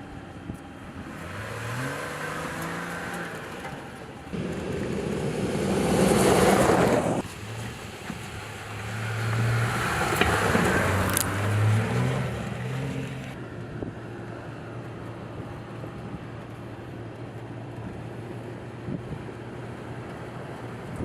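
Jeep Gladiator pickup driving off-road, its engine revving up twice with a rising pitch. A loud rushing noise cuts in and out sharply between the two revs, and the engine then settles into a steady drone.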